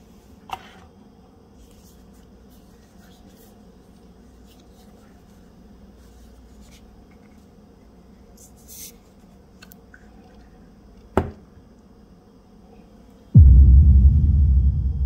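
Faint steady hiss with two sharp clicks, one about half a second in and one about 11 seconds in, then a sudden loud low boom about 13 seconds in that slowly fades.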